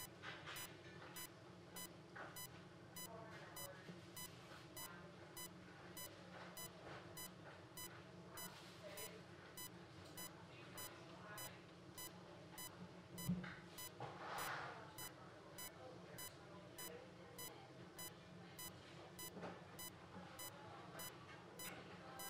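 Bedside patient monitor beeping faintly and regularly, about two short beeps a second, over a low room hum. Soft handling and rustling sounds, with one knock about 13 seconds in and a louder rustle just after.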